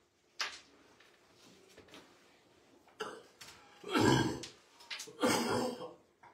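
A person clearing their throat twice, loudly, once near the middle and once near the end, after a single sharp click about half a second in.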